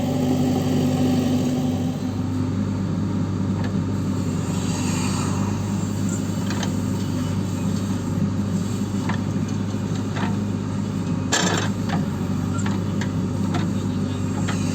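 Backhoe loader's diesel engine running steadily at work, with scattered knocks and one louder clank about eleven seconds in.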